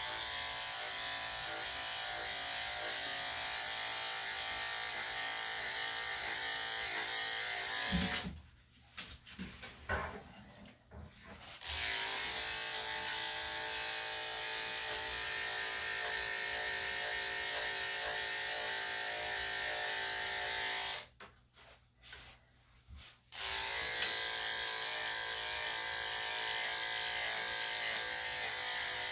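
Electric dog grooming clippers running with a steady motor hum while shaving a Lhasa Apso's coat. The hum cuts out twice for a few seconds and starts again.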